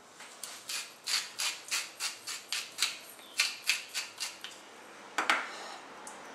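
Hand-twisted pepper mill grinding black pepper over raw chicken: a run of short, regular crunching grinds, about three to four a second, stopping after about four seconds. A single louder knock-like rustle follows about five seconds in.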